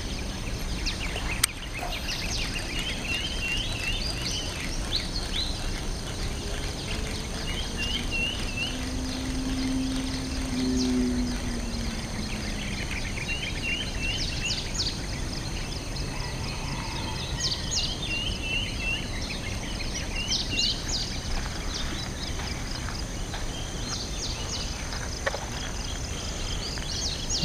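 Riverside ambience at dusk: birds chirping in short repeated groups of two or three notes over a steady low hiss. A faint low hum passes about ten seconds in, and there is one sharp click near the start.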